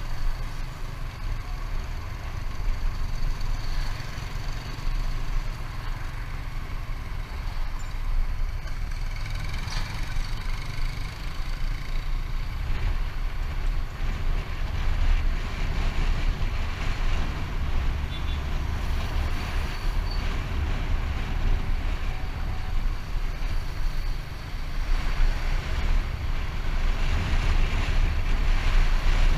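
Steady low rumble of a vehicle under way, mixed with wind noise; it grows louder about 25 seconds in.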